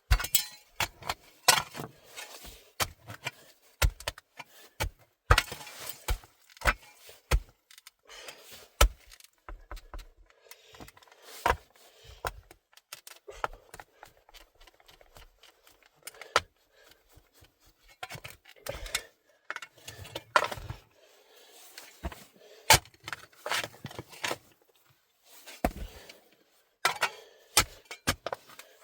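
A run of irregular sharp knocks, cracks and clatter, with rustling in between.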